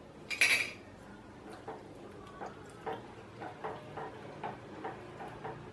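A spatula stirring a watery curry in a nonstick kadai: a short louder splash-and-scrape about half a second in, then light regular scrapes and taps against the pan, about two or three a second.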